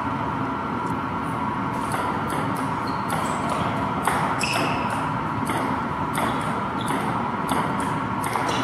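Table tennis rally: a celluloid ball clicking off paddles and the tabletop in quick irregular pairs and runs, over a steady background noise.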